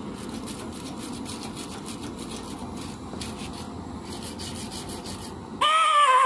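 Wire brush scrubbing torch-softened paint off a steel motorcycle frame: quick repeated rasping strokes over the steady rush of a butane flame gun. About five and a half seconds in, a louder tune starts abruptly.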